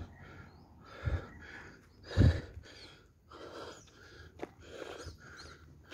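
A hiker breathing hard from the climb up a steep hill, short noisy breaths in and out, one or two a second. Three low thumps come in the first half, the loudest about two seconds in.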